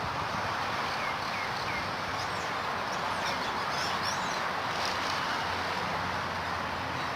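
Steady outdoor background noise with a faint low hum. Short, high chirping calls are scattered through it from about a second in until about five seconds in.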